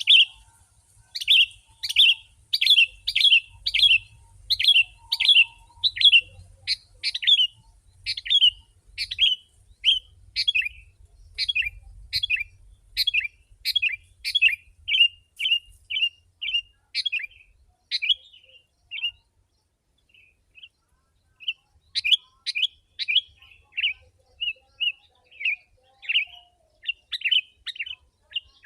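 Sooty-headed bulbul (kutilang) calling over and over in short, sharp chirps in quick succession, with a pause of a couple of seconds about two-thirds through.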